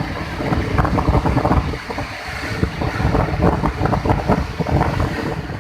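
Wind buffeting the microphone over the steady rush of the flooded Godavari river, in loud irregular gusts.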